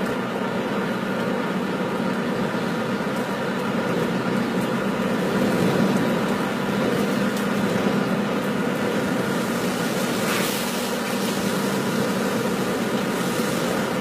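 Steady engine and road noise of a car being driven, heard inside the cabin, with a brief rush of noise about ten seconds in.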